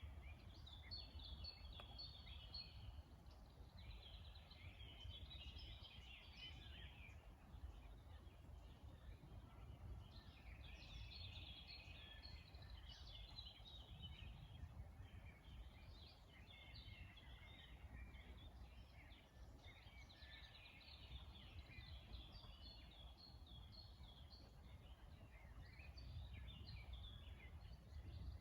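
Songbirds singing in quick, overlapping chirping phrases, faint, over a steady low background rumble.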